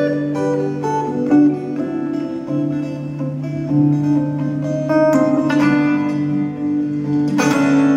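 Acoustic guitar playing an instrumental passage of a folk song, plucked notes ringing over held low notes.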